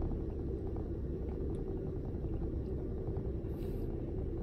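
Steady low rumble and hum inside a parked minivan's cabin, with a brief soft hiss about three and a half seconds in.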